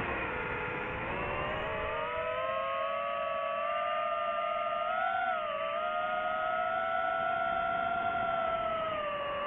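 DJI FPV drone's motors and propellers whining in flight. The pitch climbs gently over the first couple of seconds, dips briefly about five seconds in, then sags near the end as motor speed changes.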